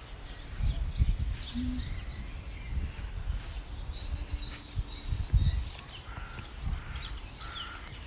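Small birds chirping in short, scattered calls, over irregular low gusts of wind buffeting the phone's microphone.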